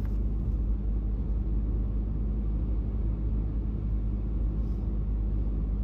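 A car driving on a paved road, heard as a steady low rumble of road and engine noise.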